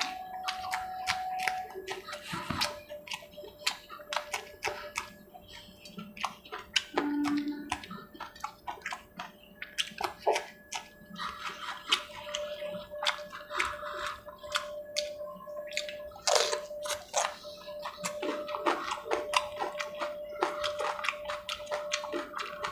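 Close-up wet eating sounds: chewing, lip smacking and fingers squishing and tearing soft curried chicken, heard as a rapid, irregular scatter of small clicks and squelches.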